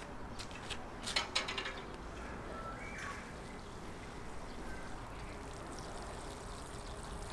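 Water sprinkling steadily from a watering can's rose onto mulch and plants. A few sharp clicks come about a second in.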